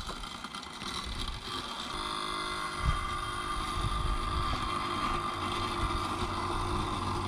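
Bosch Indego S+ 350 robot lawn mower running as it starts cutting the lawn: its motor whine comes in about a second in and settles to a steady pitch. One short low thump about three seconds in.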